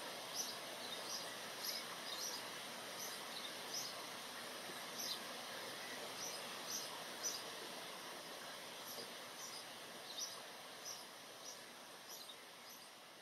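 Steady rain falling on forest foliage, with a bird repeating a short high chirp every half second to second. The whole sound slowly fades toward the end.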